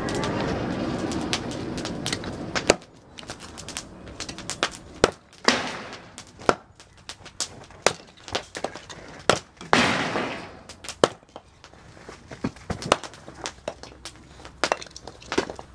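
Hatchet splitting kindling from a wood block on an anvil: sharp knocks every second or two, a couple of them with a longer splitting crackle. A steady rushing noise, such as the forge's air, runs under the first few seconds and stops about three seconds in.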